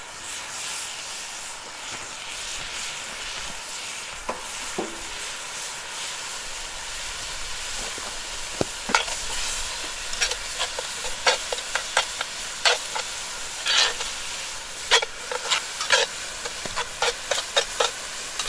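Food sizzling in a dutch oven while being stirred, a utensil scraping and clinking against the pot in sharp, irregular strokes from about halfway through.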